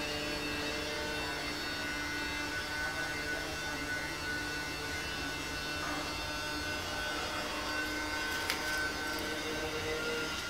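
Steady electrical hum with a few faint steady tones over it, and a single light click about eight and a half seconds in.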